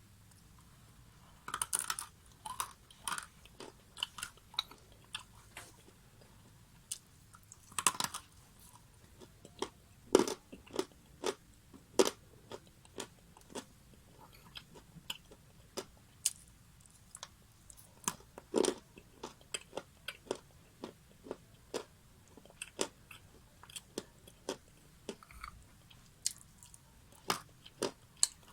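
Close-miked crunching bites and chewing of something hard and crisp: irregular sharp cracks, a few loud bites among many smaller crunches.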